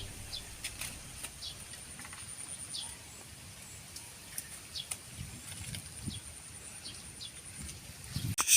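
Outdoor farmyard ambience with short bird chirps scattered throughout and a faint steady high whine that stops about two thirds of the way in. A loud sudden knock near the end.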